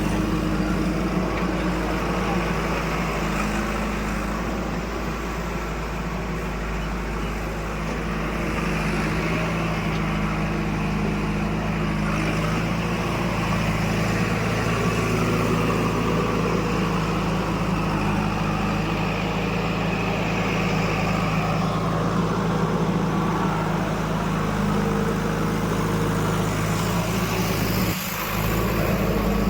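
Heavy diesel machinery engine running steadily at a constant speed, dipping briefly near the end.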